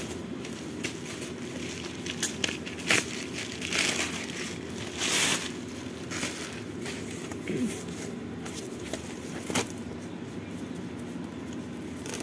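Plastic-wrapped pack of stick-on vinyl tiles being opened and handled: irregular crinkling rustles and light taps, the longest rustles about four and five seconds in, over a steady low background hum.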